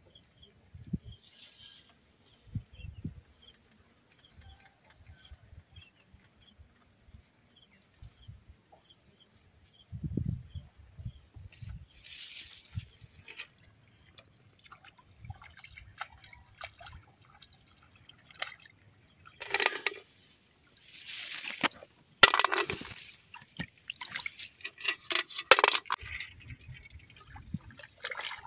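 Soft footsteps through grass, then water splashing and sloshing in a flooded rice paddy as hands reach into the shallow water among the rice plants, loudest in the second half. A faint, regular high ticking runs under the first half.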